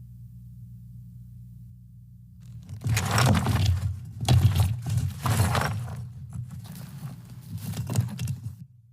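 Foley footsteps on rocks: a run of heavy crunching, scraping steps on stone and gravel, starting about three seconds in and stopping just before the end, over a low steady hum.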